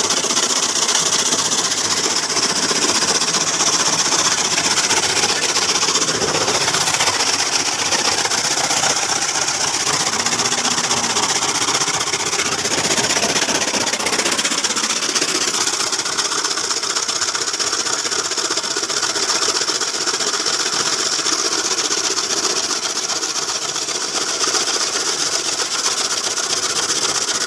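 Four-blade chaff cutter (toka machine), driven by a 5 HP electric motor, running steadily while it chops green fodder stalks into silage: a continuous dense whirr with a strong hiss.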